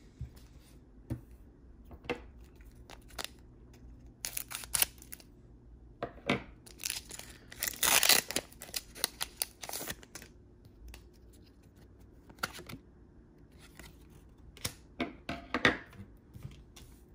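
Foil Pokémon Steam Siege booster pack wrapper being opened, crinkling and crackling in short bursts, densest from about seven to ten seconds in. Scattered light clicks and rustles follow as the stack of cards is handled.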